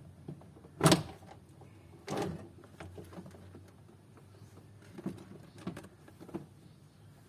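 Honda Civic door trim panel being pulled off the door, its plastic retaining clips popping loose: a loud sharp snap about a second in, a second snap about two seconds in, then a few fainter knocks.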